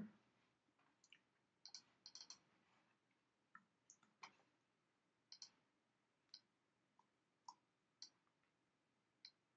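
Faint, scattered clicks of a computer keyboard and mouse, irregular and sometimes in quick pairs or threes.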